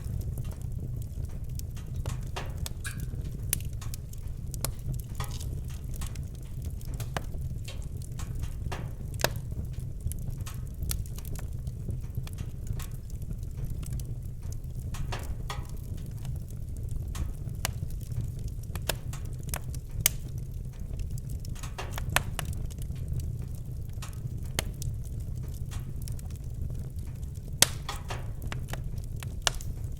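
Fire in a fireplace crackling: a steady low rumble under frequent sharp crackles, with a few louder pops, the loudest near the end.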